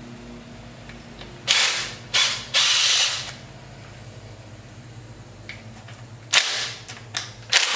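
Cordless impact driver hammering loose the front fender's mounting screws in short bursts: three about one and a half to three and a half seconds in, then a few more near the end.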